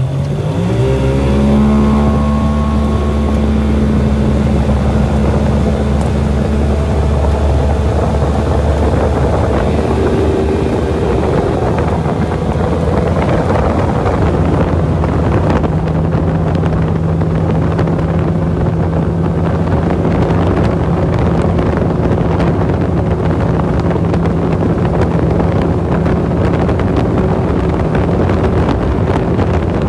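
Outboard motor on an aluminium tinny opening up to full throttle, its note rising over the first couple of seconds, then running steady at high speed with the motor on its lowest jack-plate setting. Wind buffets the microphone and water rushes past the hull.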